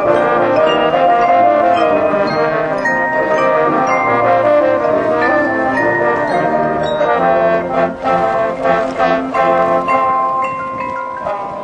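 High school marching band playing its field show: brass sustaining chords over mallet percussion such as marimba and xylophone.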